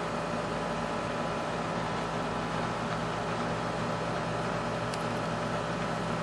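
A steady mechanical hum with several held tones over a soft, even noise, unchanging throughout.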